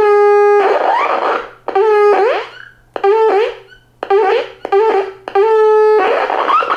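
Gakken Denshi Block EX-150 electronic horn circuit, a two-transistor oscillator driving the kit's speaker, beeping as its key switch is pressed: about six short, steady, buzzy horn tones. After each press a buzzy tail slides upward in pitch as it fades; this is the lingering decay the circuit's capacitor gives after the switch is released.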